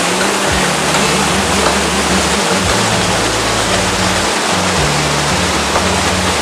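Water of a small stream rushing over rocks in a steady, loud hiss, with music underneath: low bass notes that step to a new pitch about every second.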